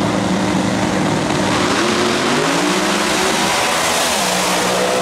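Pro Mod door-slammer drag cars at full throttle: engines held at high revs, then launching and accelerating hard, the pitch dropping and climbing again as they pull away, with a loud rush as one car passes close about four seconds in.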